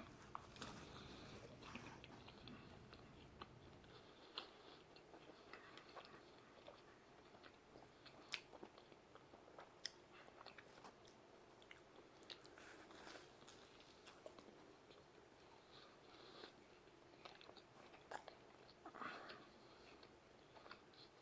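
Faint chewing of a slice of barbecue brisket pizza, with scattered small mouth clicks and smacks.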